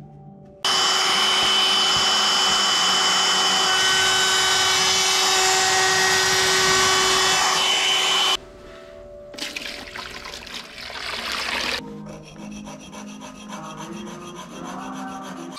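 A shop vacuum runs loud and steady with a fixed whine, then cuts off suddenly. After it, a blade is rubbed back and forth on a flat sharpening plate, a gritty scraping.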